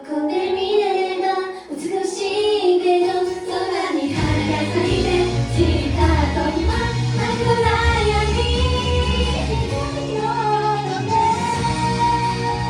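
A J-pop song sung by female voices, the melody carried over a light accompaniment at first; a low bass part comes in about four seconds in and the full band plays on under the singing.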